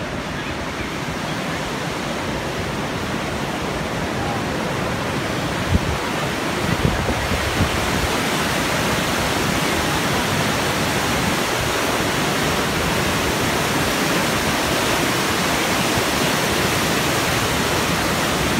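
Rushing whitewater of the Parvati River, a mountain river in spate tumbling over boulders, as a steady dense rush. It grows louder about eight seconds in and then holds.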